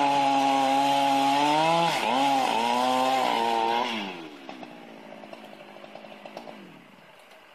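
Chainsaw running at high revs, cutting into a felled log, with brief dips in revs about two and three seconds in. About four seconds in it comes off the throttle: the engine sound drops sharply, then falls in pitch and fades out, with a few light clicks.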